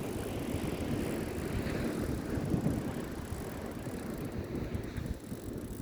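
Wind rumbling and buffeting on the microphone, a steady low noise that swells a little partway through.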